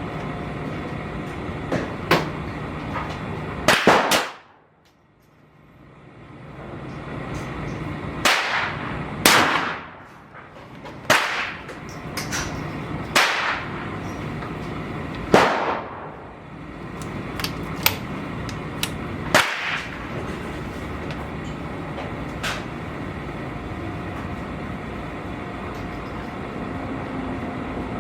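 Gunshots from 12-gauge shotgun slug loads: about six loud, sharp reports at irregular intervals of one to four seconds, each with a ringing tail. Fainter cracks come between and after them, over a steady background hum.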